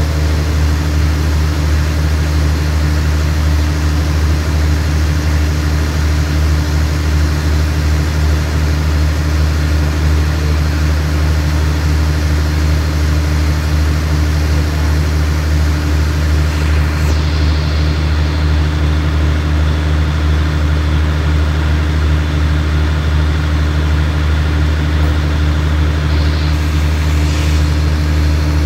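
Diesel engine of a standing passenger train idling, a loud, steady, deep hum with a fainter hum an octave or two above.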